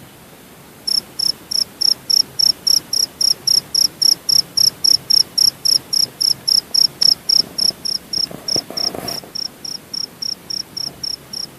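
A Javanese field cricket (jangkrik) chirping: short, high-pitched pulses repeated evenly at about four a second. The chirping starts suddenly about a second in and grows softer after about nine seconds.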